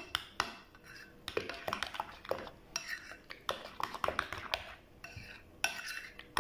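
A utensil stirring thick crème fraîche and garlic mixture in a glass bowl, with irregular taps and short clinks against the glass.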